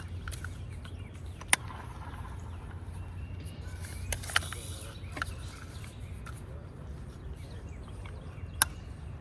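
Steady low outdoor background rumble, with a few sharp clicks: one about a second and a half in, two close together around four seconds, and one near the end.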